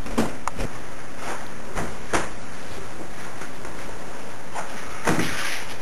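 A steady hiss broken by a few short knocks and clicks, the most distinct about two seconds in and another about five seconds in.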